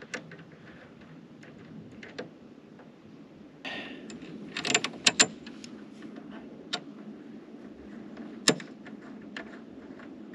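Handling noise from a snowblower handle being assembled by hand: scattered clicks, knocks and rattles of plastic and metal parts, a brief rustle, then a few loud sharp snaps about halfway through and one more later on.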